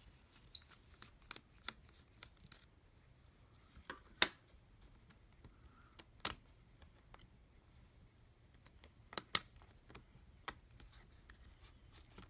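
Scattered small clicks and taps of a screwdriver and fingers on the retaining screw and M.2 2242 SSD inside an opened laptop case, as the drive is unscrewed and lifted out. The sharpest click comes about four seconds in, with a quick pair of clicks near the nine-second mark.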